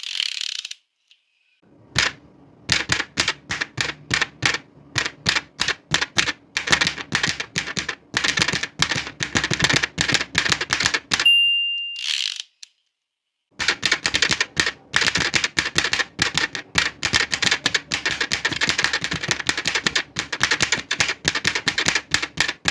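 An old manual typewriter typed on in rapid bursts of clacking keystrokes. About halfway through the margin bell dings once and the carriage swishes back, followed by a brief pause before the typing resumes.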